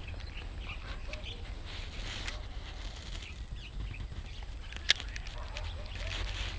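Birds chirping and calling, over a low wind rumble on the microphone, with one sharp click about five seconds in.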